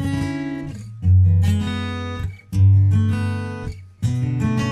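Music: an acoustic guitar strumming chords, a new chord struck about every one and a half seconds, each ringing until the next.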